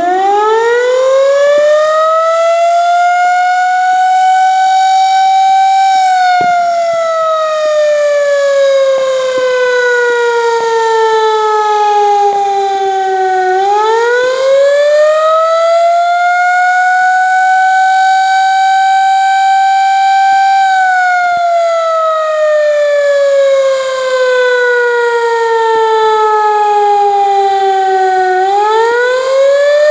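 Air raid siren sounding a wail: its single tone winds up in pitch, holds high for a few seconds, then slowly falls. The cycle repeats, with a third wind-up starting near the end.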